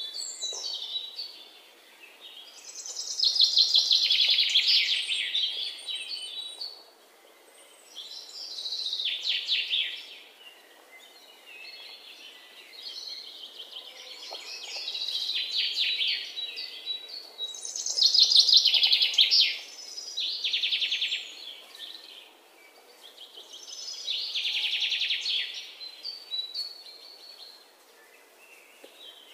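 Birdsong: a songbird's fast trilling phrases, each a second or two long, repeating every few seconds with quieter chirps in between.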